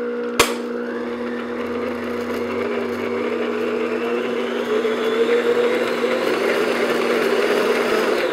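Electric stand mixer running steadily, its flat beater mixing flour into cake batter in a glass bowl, with a steady hum whose pitch rises a little partway through. A sharp click about half a second in; the motor stops near the end.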